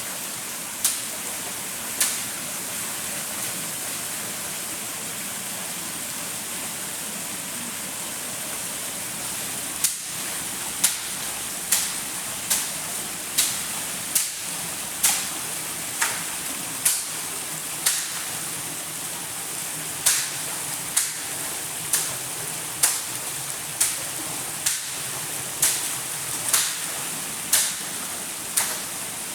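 Stream water running steadily, with sharp knocks repeating at a steady pace of about one a second, starting about a third of the way in after a few near the start.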